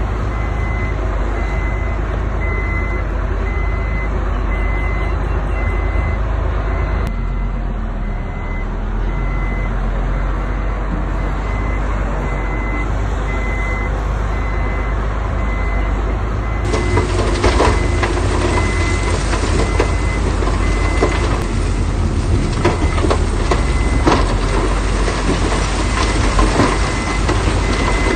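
Heavy diesel construction machinery running, with a back-up alarm beeping steadily at an even pace. About two-thirds of the way through, a louder rattling clatter of sharp knocks joins in and continues.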